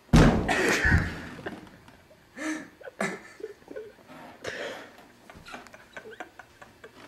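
A skateboarder crashing onto the floor indoors: a loud thump and clatter, a second hard hit about a second later, then short bursts of laughter.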